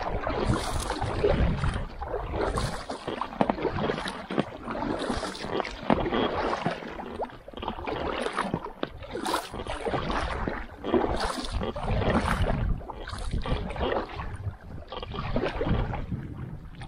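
Double-bladed paddle dipping and splashing in the water as an inflatable kayak is paddled, about one stroke a second.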